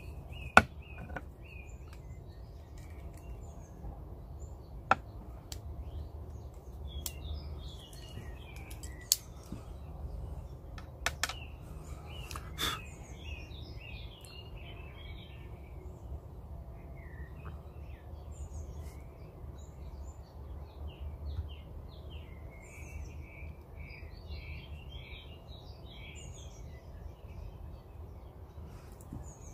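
Small birds chirping in the background over a steady low rumble, with a few sharp clicks, the loudest about half a second in.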